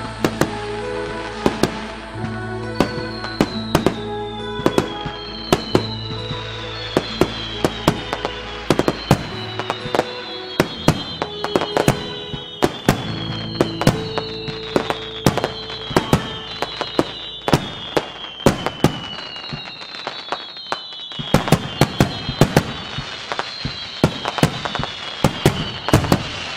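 New Year's fireworks going off: many sharp bangs and crackles, with high whistles that fall in pitch, overlapping throughout. Background music with held notes and a bass line plays under it for the first half.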